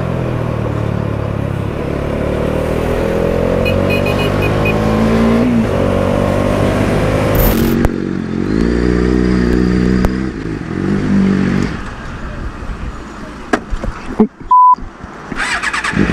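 Motorcycle engine pulling through traffic, its pitch rising as it accelerates. After a cut, a second motorcycle's engine revs up and holds, then eases off. Near the end comes a short loud beep, a censor bleep.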